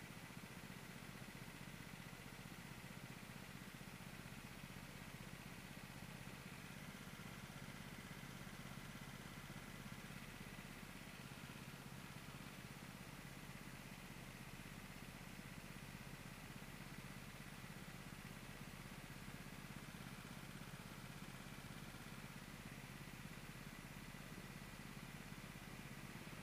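Go-kart engines idling steadily.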